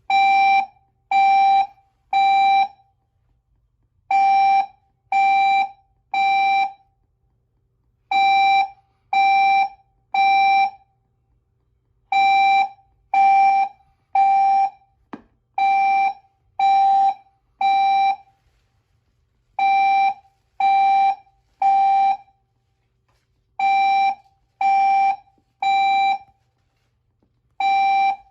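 Building fire alarm horn sounding the temporal-three evacuation pattern: three half-second blasts of a steady buzzy tone, a pause, then again, repeating about every four seconds. The alarm was set off by cooking.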